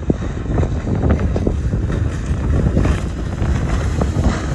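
Heavy wind buffeting the microphone, with a small speedboat's outboard motor running at speed across choppy water underneath.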